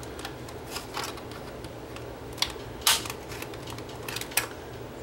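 Plastic casing of a portable CD player being worked apart by hand at its seam: scattered small clicks and scrapes, with a sharper click about three seconds in and another near the end.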